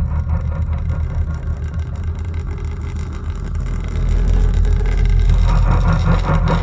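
Low, rumbling drone of a horror film's background score, growing louder about four seconds in.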